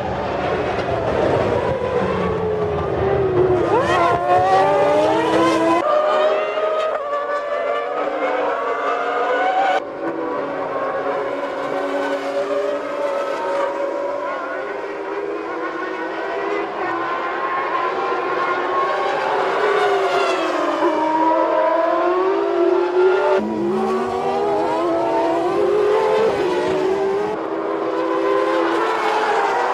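Formula One racing cars' engines at high revs, several at once, their notes climbing and dropping through gear changes and braking. The sound changes abruptly about six, ten and twenty-three seconds in.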